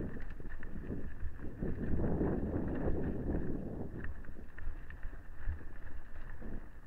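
Mountain bike riding fast down a dirt singletrack: a steady rolling rumble of knobbly tyres on the dirt, with scattered clicks and rattles from the bike jolting over bumps.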